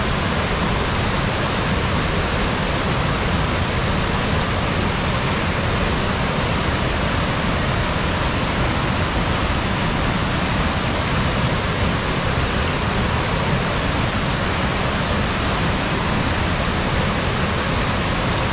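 Waterfall pouring onto rocks, with the creek rushing over stones below: a steady, even rush of water with no change in level.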